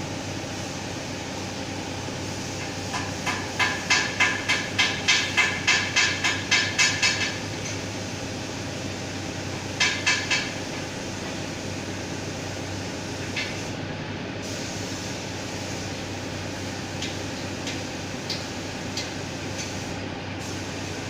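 Hammer striking metal: a fast run of about a dozen ringing blows, roughly three a second, then three more blows a few seconds later, over a steady background noise.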